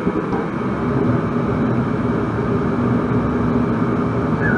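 Furnace running with a steady low motor hum, which steps up slightly at the start, its power switch back on after being found off.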